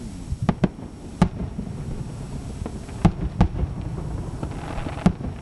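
Aerial fireworks shells bursting: about six sharp bangs spread over a few seconds, two close together near the start and single booms about a second in, around three seconds in and near the end, over a continuous low rumble.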